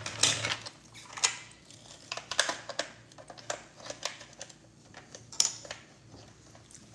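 Hard plastic toy playset being handled: irregular light clicks and knocks as its small parts are pushed on and moved about.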